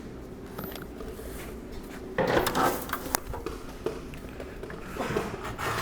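Utility knife scoring a steel roofing panel along the inside corner of its rib: a loud rasping scrape about two seconds in with a sharp click near its end, a few light knocks, then more scraping near the end.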